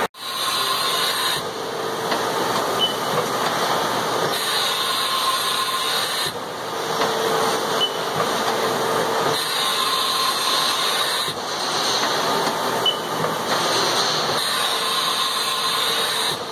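2006 Haas Mini Mill CNC vertical mill running with its axes moving: a steady whirring hiss whose tone shifts every two to three seconds as the table and head traverse and stop.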